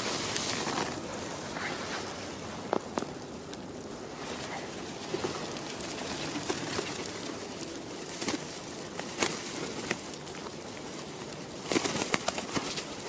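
Feral pigeons cooing softly and pecking seeds off a hand and the pavement, with scattered sharp taps and a busier cluster of them near the end.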